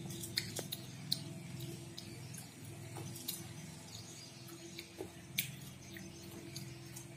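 Small coated candies clicking and rattling against a glass plate as a child's fingers pick through them, a scatter of sharp light clicks with a few louder ones, over a steady low hum.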